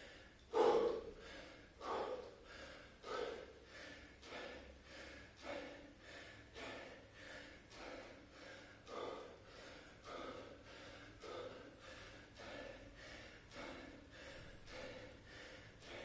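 A man breathing hard and rhythmically through a set of bodyweight squats, a forceful breath about every second in time with the reps. The breaths are loudest at the start of the set and then settle into an even rhythm.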